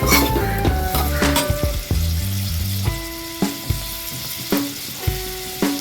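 Vegetables sizzling in butter in a frying pan, with background music of steady melodic notes over it.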